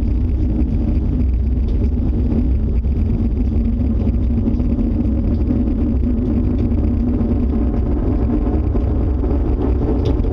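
Tornado roar: loud, steady, deep rumbling wind that holds without letting up.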